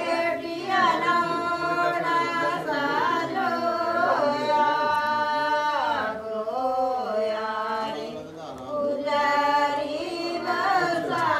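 Singing voices, a song with long held notes that slide up and down in pitch.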